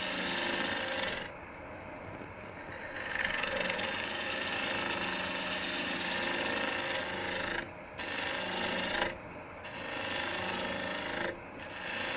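Robert Sorby ring tool cutting into the end grain of a spinning bowl on a wood lathe: a steady shearing hiss as it peels off long ribbon shavings. The cut comes in several passes with brief pauses between them, over the lathe's low, steady hum.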